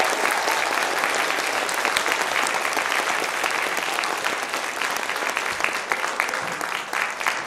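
Audience applauding: a dense, steady patter of clapping, easing off slightly toward the end.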